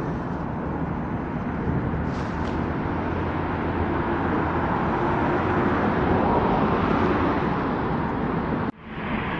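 Steady rumble of motor-vehicle noise, growing slightly louder partway through, then cutting off abruptly near the end.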